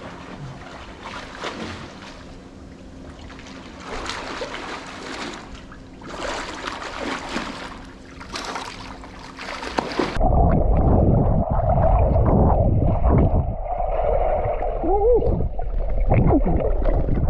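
Swimmer's arm strokes splashing in a pool in several bursts. About ten seconds in, this gives way to the louder, muffled rumble and bubbling of a camera underwater.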